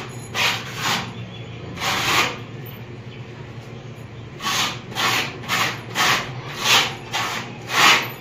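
Metal putty knife scraping wall putty across a rough cement-plastered wall: a run of short scraping strokes, three in the first couple of seconds, then a quicker series of about six in the second half.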